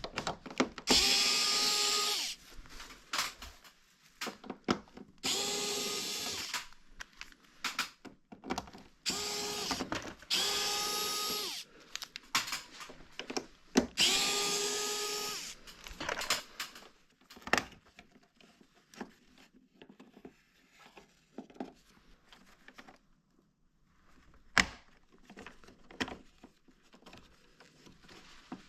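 Cordless electric screwdriver running in about five short bursts of one to two seconds each, a high whine that dips in pitch as each run stops, taking out screws on a Toshiba air conditioner's indoor unit. In the second half come scattered clicks and knocks of parts being handled.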